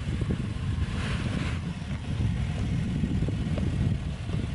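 Land Rover SUV's gasoline engine rumbling low and steady as the SUV crawls down a steep rock grade, with a brief hiss about a second in.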